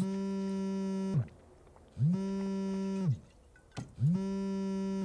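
A mobile phone on vibrate buzzing against a hard surface for an incoming call: three buzzes about a second long, each one winding up and down in pitch as the motor starts and stops, about two seconds apart.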